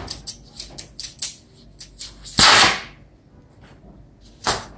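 Flint spark lighter struck repeatedly at the tip of an oxy-fuel brazing torch to light it: a run of sharp clicks, then a loud short rush of gas about two and a half seconds in, and another short burst near the end.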